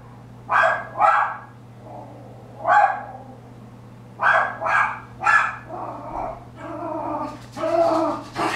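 Small chihuahua barking in short, sharp, high barks, about six in the first five seconds, then a longer unbroken stretch of rougher barking near the end: an angry dog barking at the mail carrier at the door.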